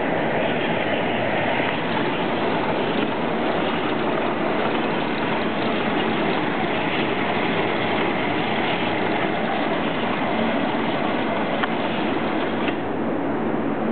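Ellis 1600 horizontal bandsaw running: a steady mechanical whir and rush of the motor and moving blade, easing slightly in its higher part near the end.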